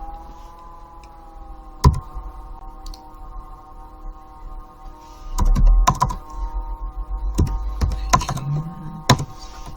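A few separate keystrokes and clicks on a computer keyboard, some with a dull knock, over a steady background of several held tones.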